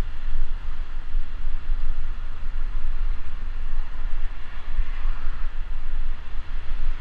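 Wind buffeting an action camera's microphone as a bicycle rides along, a steady fluctuating rumble, over a hiss of road traffic.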